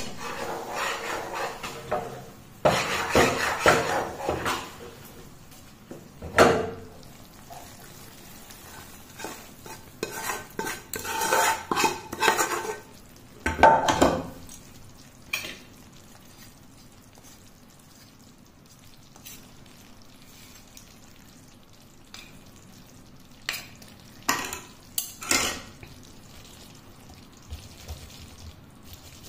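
Hot Mysore pak mixture being tipped from a steel pan into a greased steel plate and scraped out with a metal ladle: bursts of metal scraping and knocking on the pan and plate, loudest in the first half, with a faint sizzle from the hot, ghee-frothy mixture in the quieter stretches.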